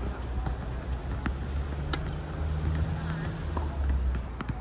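A few faint, sharp knocks of tennis balls on a hard court, over a steady low rumble.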